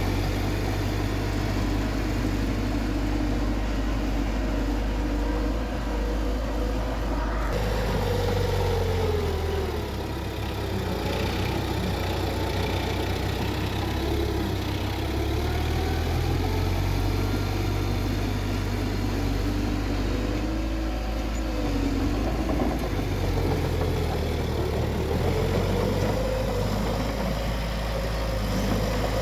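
Diesel engine of a bulldozer running steadily, its pitch rising and falling several times as it works.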